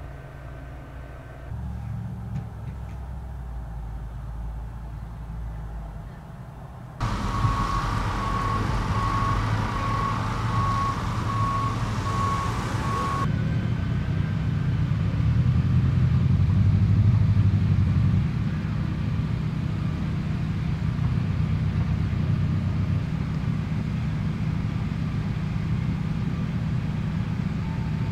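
Heavy truck engines running, with a vehicle's backup alarm beeping in a steady pulse for about six seconds in the middle. A low engine rumble runs under the whole stretch.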